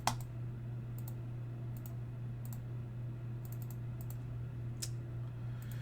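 Computer clicking: about ten scattered single clicks at an uneven pace, a couple in quick succession, over a steady low hum.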